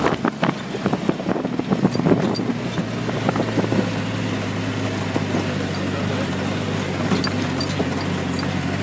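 Off-road 4x4's engine running steadily while it drives, with knocks and rattles over the first three seconds, then an even drone.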